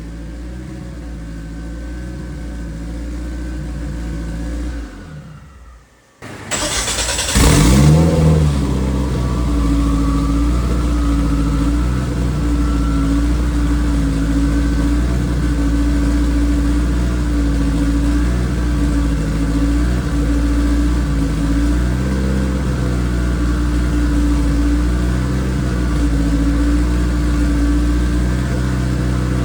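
A race car engine running steadily, then winding down and stopping about five seconds in. About a second later it is restarted: it catches with a sudden loud burst and a short rising flare, then settles into a steady idle.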